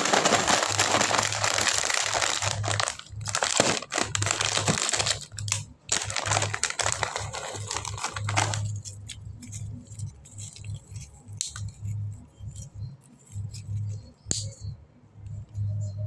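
Plastic snack packaging crinkling loudly as it is handled and opened for about the first eight seconds, then only scattered crackles and clicks. A low pulsing beat of background music runs underneath.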